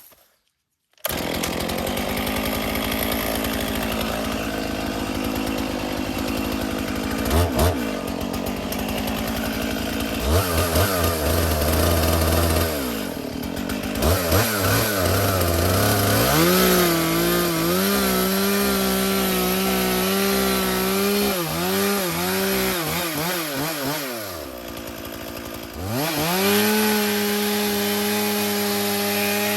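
Stihl two-stroke chainsaw starting abruptly about a second in and running at high revs, its pitch dipping and wavering again and again as the chain cuts into the tree. Late on it drops briefly to a lower, quieter pitch, then revs back up to a steady high whine.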